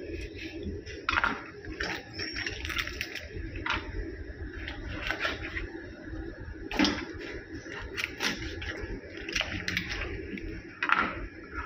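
A raw whole chicken being cut up with a kitchen knife on a plastic cutting board: irregular knocks and clicks of the knife and the joints, with the meat being handled between them, over a steady low hum. The loudest knocks come about a second in, near the middle and near the end.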